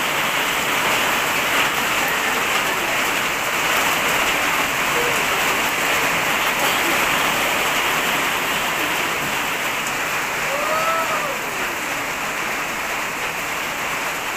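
Rain falling steadily on concrete ground and walls, an even rushing hiss that holds at the same level throughout.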